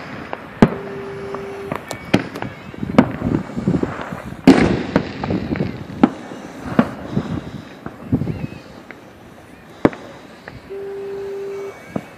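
Fireworks display: sharp bangs at irregular intervals, the loudest about four and a half seconds in, several followed by a low rumble. A steady tone sounds twice, about a second each, near the start and near the end.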